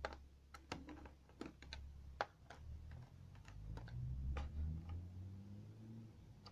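Small screwdriver clicking and tapping on the screws and plastic bottom case of an HP Stream 11 laptop as the back-cover screws are undone: irregular sharp clicks, most in the first four and a half seconds, over a low hum.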